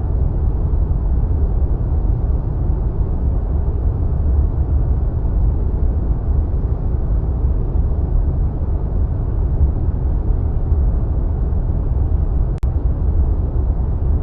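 Steady deep rush of wind, like air streaming past in flight, heaviest in the low bass with little hiss on top. There is a single brief click near the end.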